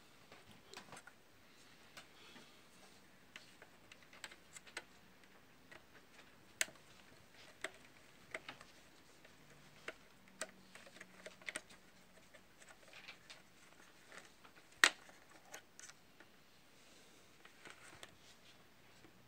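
Irregular light clicks and taps of a screwdriver and wire ends working the screws of a plastic screw terminal block inside a plastic appliance housing, while a cable is connected. One sharper click stands out about three-quarters of the way through.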